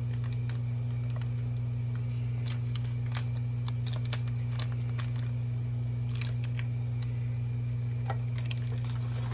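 A steady low hum, with scattered light crinkles and scrapes as a spatula scrapes cream cheese off its foil wrapper and into a stainless steel mixer bowl.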